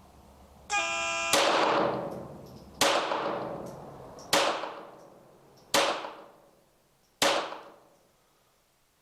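A short electronic beep, then five .22 LR pistol shots from a CZ 75B fitted with a Kadet .22 conversion, evenly about one and a half seconds apart, each ringing out and fading. It is a five-shot rapid-fire bullseye string, fired faster than it needed to be.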